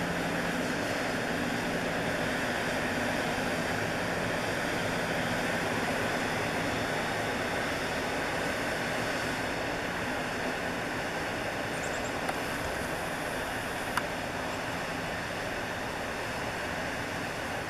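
Steady distant roar of a fracking operation: the well site's pumping equipment running continuously, with a low, even hum beneath it. A single short click comes about fourteen seconds in.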